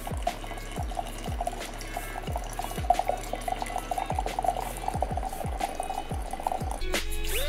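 Background music with a deep, regular beat, over liquid pouring steadily as coffee is made in a French press. The pouring stops near the end.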